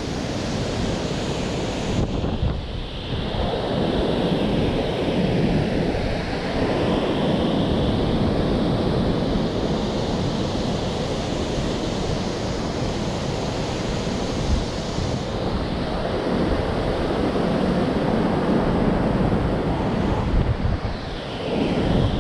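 Steady rush of water below a dam, with strong wind blowing across the microphone.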